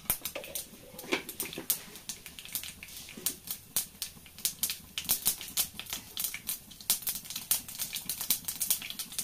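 Mustard seeds popping and spluttering in hot oil in a frying pan: irregular sharp pops, several a second.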